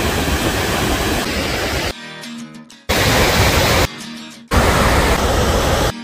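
Loud, steady roar of a large waterfall's torrent, with wind rumbling on the microphone. It comes in three stretches that cut off abruptly about two, four and six seconds in, leaving short quieter gaps where background music with steady tones is heard.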